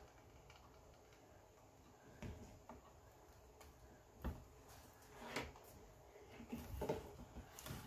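Faint handling noises from a wood burning tool and poly burlap mesh on a tempered glass sheet: a few light knocks and rustles, the sharpest about four seconds in and a cluster near the end.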